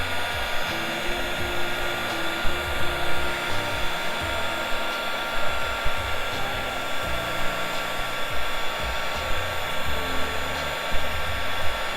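Blue-Point electric heat gun running steadily, a continuous blowing hiss with a faint steady whine. It is blowing hot air onto a steel bumper to soften a Plasti Dip coating so it will peel.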